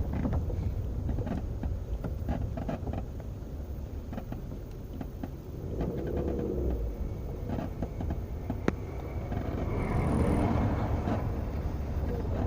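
Creaking and squeaking over a steady low rumble, with one drawn-out creak about halfway through and a higher squeak near the end.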